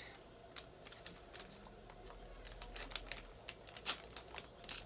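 Faint crinkling and rustling of packaging being handled and opened, with a scatter of small clicks and taps that grows busier about halfway through.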